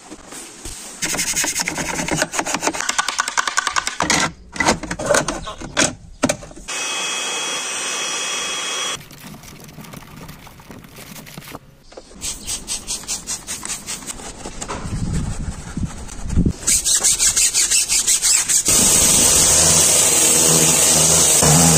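Car-detailing sounds in quick succession: rhythmic scrubbing and wiping strokes on upholstery and trim, a short steady machine whir in the middle, and a pressure-washer jet spraying a wheel near the end, the loudest part.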